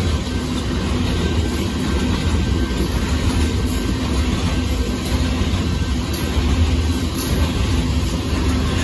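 Freight train of gravel hopper cars rolling steadily past a grade crossing: a continuous low rumble and rattle of steel wheels on the rails.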